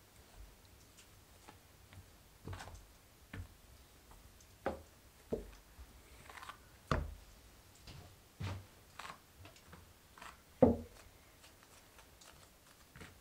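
Irregular soft knocks and taps as a knife cuts a lump of dough into pieces against a silicone baking mat and the pieces and a wooden rolling pin are handled and set down, with one louder knock about three-quarters of the way through.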